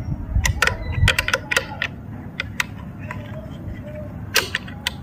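Pliers clicking against the metal mirror stem and its nut on a motorcycle handlebar mount as the nut is worked loose: a run of sharp metallic clicks, a cluster in the first two seconds and a few more near the end.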